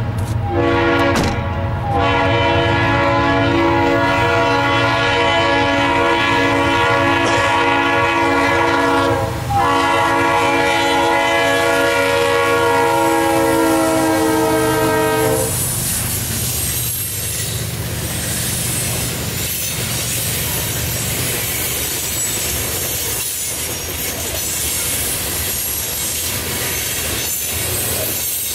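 Norfolk Southern freight locomotive blowing its multi-chime air horn in long blasts for about the first fifteen seconds, with two brief breaks, its pitch sagging slightly as the locomotives pass close. The horn then stops and the freight cars roll by with a clickety-clack of wheels over rail joints and a high wheel squeal.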